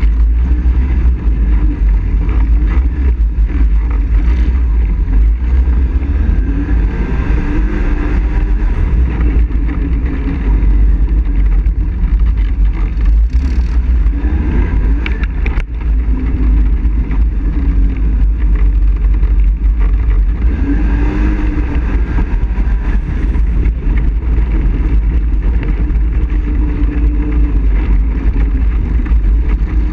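ATV engine running under way, heard up close from the riding quad, its pitch rising and falling gently with the throttle over a steady rumble.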